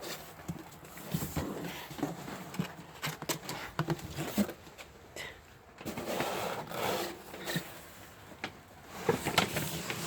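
Cats moving about: irregular light knocks, scrapes and rustling, with a longer stretch of scuffling about six seconds in.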